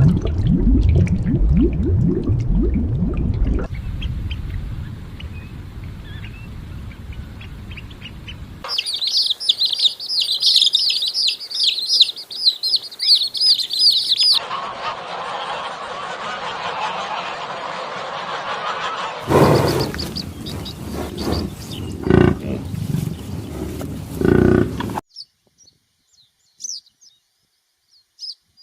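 A run of short animal-sound clips cut one after another, with a stretch of dense high-pitched bird chirping in the middle. The clips start and stop abruptly.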